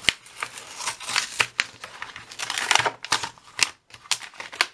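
Cardboard backing being peeled and torn off a plastic blister pack, with the plastic crinkling and clicking as the markers inside are handled. A dense run of sharp crackles and short tearing rasps.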